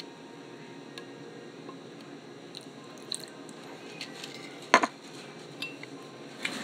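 Glue-and-borax slime being mixed in a bowl: soft squishing with scattered small clicks against the bowl, and one sharp knock about three-quarters of the way through.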